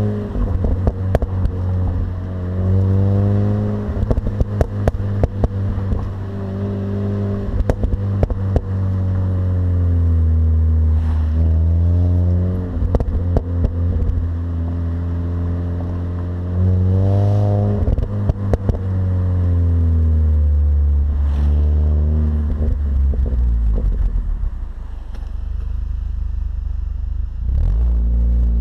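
Mini Cooper S R53's supercharged 1.6-litre four-cylinder engine on its stock exhaust, pulling up through the revs and dropping back several times as it is driven through the gears, with short sharp crackles scattered throughout. The revs settle lower and steadier near the end.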